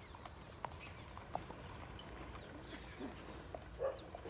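Horses walking on a dirt track, their hooves giving soft, irregular thuds, with a somewhat louder sound near the end.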